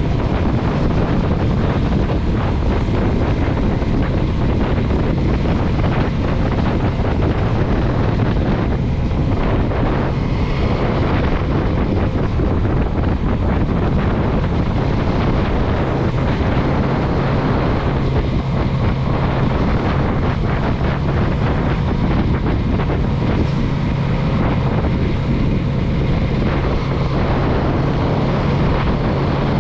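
Motorcycle engine running at a steady, even speed under heavy wind rush on the microphone, as heard riding along on the bike.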